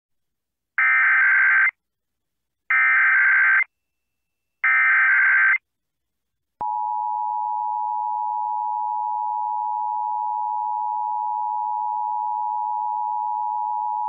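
NOAA Weather Radio SAME alert header: three one-second bursts of buzzing digital data tones about a second apart. About six and a half seconds in, the steady 1050 Hz warning alarm tone starts and holds, marking a test of the station's public warning system.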